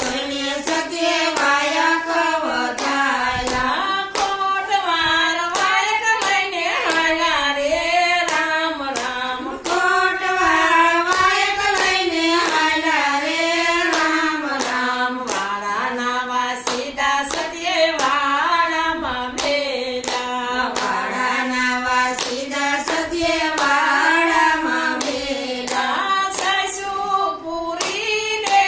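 Group of women singing a Gujarati devotional bhajan together, keeping time with a steady rhythm of hand claps.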